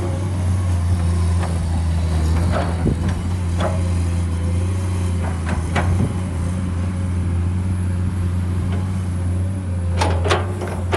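Komatsu PC210 crawler excavator's diesel engine running steadily with a low hum while the machine swings and works soil. Scattered clanks and knocks are heard, with a quick run of sharp knocks near the end as the bucket digs into the soil pile.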